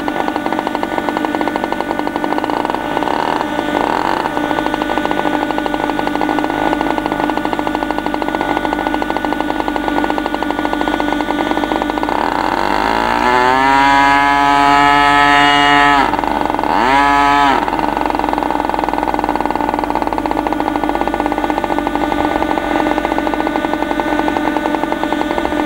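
Engine of a large radio-controlled Pitts Special biplane model running steadily on the ground. About halfway through it is revved up in a long climbing run-up, drops back, and gives one short blip before settling to a steady run again.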